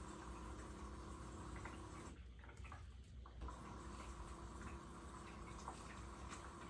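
LG front-loading washing machine running a TurboWash wash cycle: a steady low drum-motor hum with a whine over it, and water sloshing and dripping inside the drum. The whine stops about two seconds in and comes back about a second and a half later.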